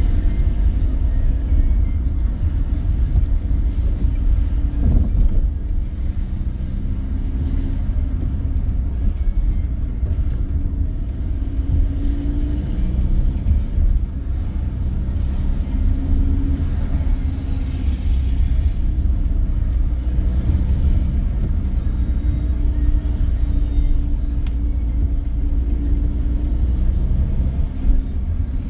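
Steady low rumble of a car's engine and tyres heard inside the cabin while driving along a street, with no sharp events.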